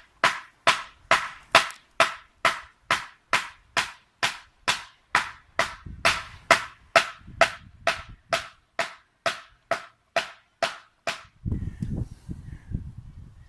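A felling wedge being hammered into the cut with quick, evenly spaced blows, just over two a second, each a sharp ringing knock. After some two dozen strikes the blows stop near the end and a low rumbling noise takes over.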